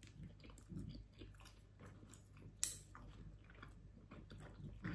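Faint close-up chewing of a dumpling, with small wet mouth noises. One sharp click about halfway through.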